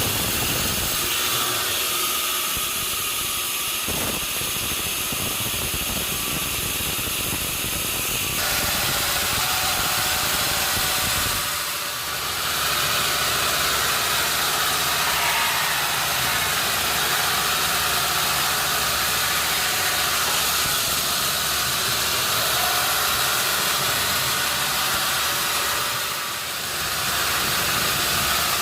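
Sawmill machinery running: a steady motor hum under a loud hiss. The sound changes abruptly about a third of the way in and dips briefly twice.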